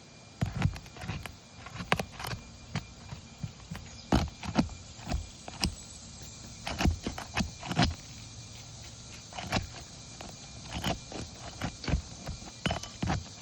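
Roofing hand tools knocking and scraping on asphalt shingles as they are pried loose and unsealed: irregular sharp clicks and thuds, sometimes several in quick succession.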